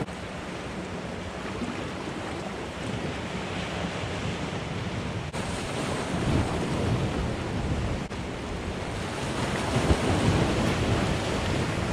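Sea surf washing and breaking against a rocky shore, a steady rushing noise, with wind buffeting the microphone.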